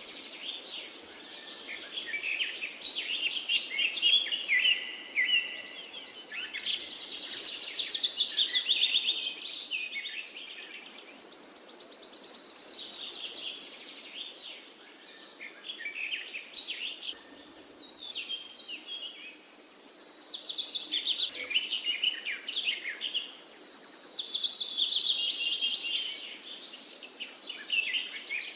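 Songbirds chirping and singing in waves of rapid, overlapping notes, with a high buzzy trill now and then.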